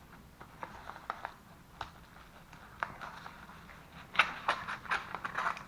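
Packaging being handled and opened by hand: crinkling and rustling with scattered sharp clicks, busier from about four seconds in.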